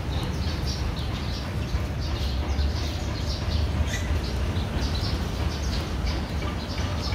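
Small birds chirping, many short high chirps several times a second, over a steady low rumble.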